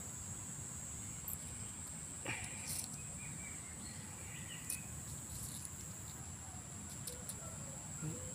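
A continuous high-pitched insect trill over a low, steady background noise, with a few faint clicks scattered through it.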